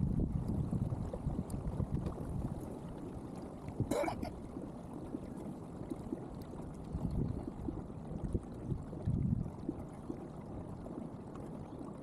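Water sloshing and gurgling around a kayak hull, with wind rumbling on the microphone; a single sharp knock about four seconds in.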